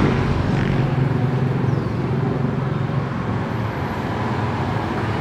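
Road traffic: a motor vehicle engine running nearby, a steady low hum with road noise.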